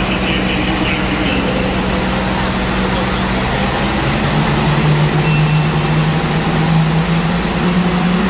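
Super Farm class diesel pulling tractor's engine running loud under load on the pull, its pitch dropping about four seconds in and climbing again near the end.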